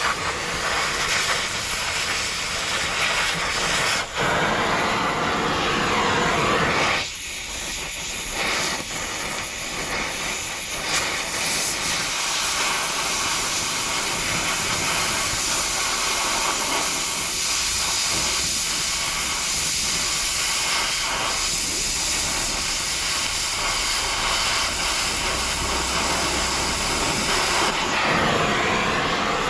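Power tool cutting steel angle iron, a steady hissing grind that drops out briefly twice, about four and seven seconds in.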